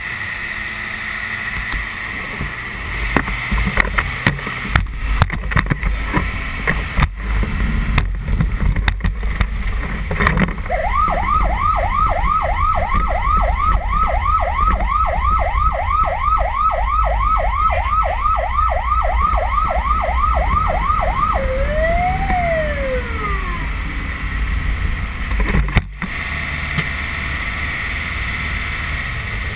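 Fire truck electronic siren in yelp mode, heard from inside the cab: fast repeated rising sweeps, about three a second, starting about eleven seconds in and lasting about ten seconds, ending with one slower rise and fall as it winds down. Under it runs a steady low engine rumble, with scattered knocks and rattles in the first ten seconds.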